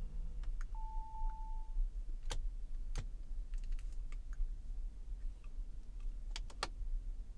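A few sharp clicks from buttons and controls being pressed on a Lamborghini Urus's centre console. A short electronic beep comes about a second in, over a faint low steady hum.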